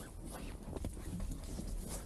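A few irregular knocks and thumps as a tope is gripped and lifted off a wet boat deck, over a steady low rumble.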